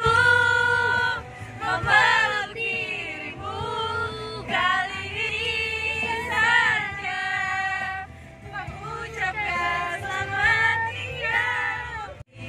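Female voices singing a song together inside a car, with a low steady hum underneath.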